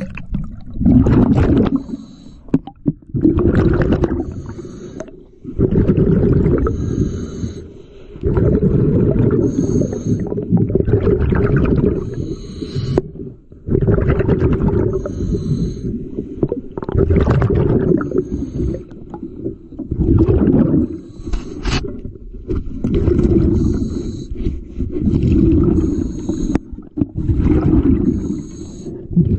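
An underwater diver breathing through a regulator: about a dozen exhaled bursts of bubbles rumbling, one every two to three seconds, with a short high hiss from the regulator on each inhale between them.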